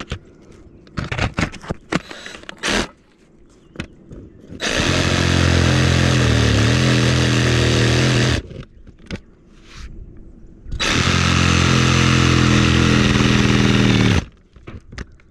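DeWalt 20V cordless reciprocating saw cutting into the roof around a pipe opening in two runs of about four seconds each, with a short pause between them. The pitch dips briefly in the middle of the first run as the blade bites. Light knocks and handling noise come before, between and after the cuts.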